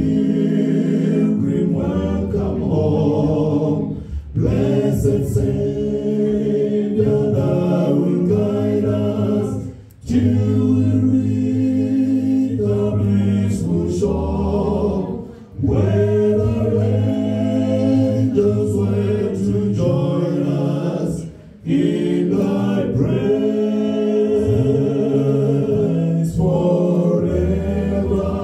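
Male a cappella vocal group singing a gospel hymn in close harmony, in long held phrases with short breaks about every five or six seconds.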